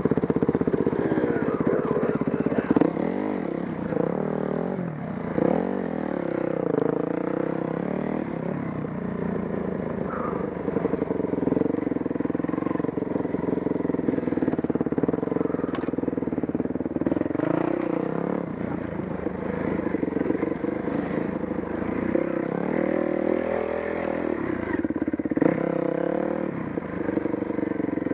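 Dirt bike engine heard from the rider's seat, its revs rising and falling again and again with the throttle on a slow trail ride.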